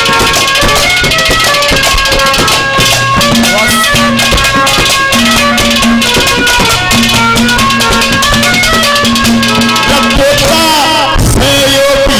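Instrumental interlude of live Haryanvi ragni folk music: a melody instrument playing held notes over fast, dense drumming with rattling percussion.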